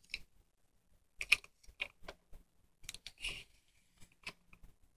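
Scattered light clicks and taps of small plastic toys being handled and moved on a tabletop, with a brief scrape about three seconds in.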